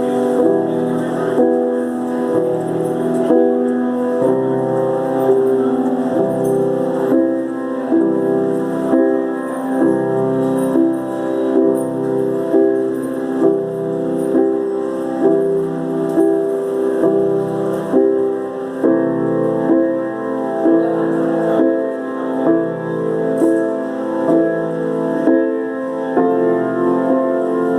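Piano playing chords in a steady rhythm, with a new chord struck about once a second.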